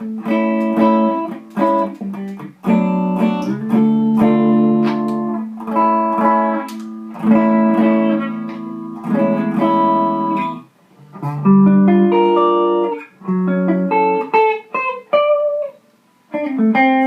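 Electric guitar (a Les Paul-style guitar) played through a modded Fender Champ 600 tube amp into a Celestion G12H 75th-anniversary 12-inch speaker. Chords are strummed and let ring, with a couple of brief pauses.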